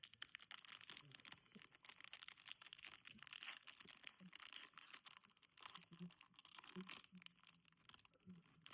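Faint crinkling and tearing of a foil trading card pack wrapper being opened, a scatter of small crackles and clicks.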